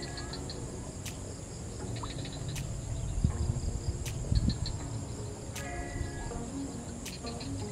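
Steady chorus of crickets and other insects, with low rumbling from about three to four and a half seconds in and a short pitched call shortly before the end.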